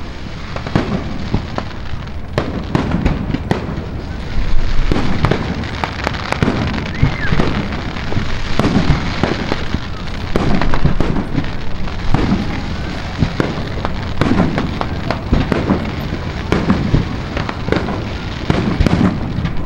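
Aerial fireworks display: shells bursting overhead in quick succession, a near-continuous run of sharp bangs over a steady rumble.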